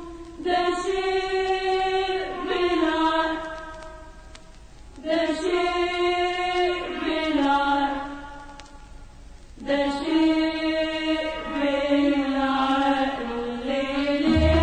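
Choir singing long held, melismatic phrases of an Egyptian dor in Arabic classical style, in three phrases with two brief lulls between them.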